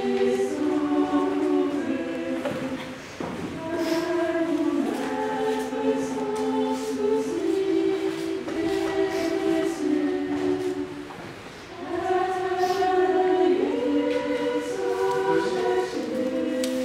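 Choir singing unaccompanied, several voices holding sustained chords that move from one to the next every second or two, with a short pause about two-thirds of the way through.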